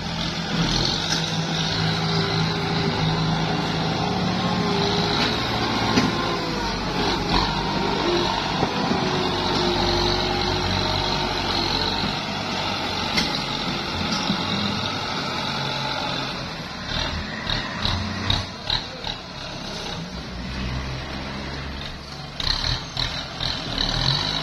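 Farm tractor's diesel engine running steadily as its front loader works laterite fill soil. A wavering higher tone comes and goes in the middle, and irregular clicks and knocks follow in the last several seconds.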